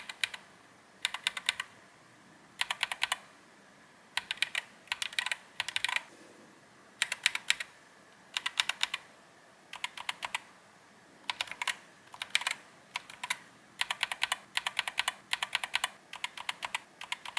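Typing on a mechanical keyboard fitted with Akko switches, linear Creamy Yellow Pros and tactile Lavender Purples, as a sound test. The keystrokes come in short bursts of clicks with brief pauses between, running faster and closer together near the end.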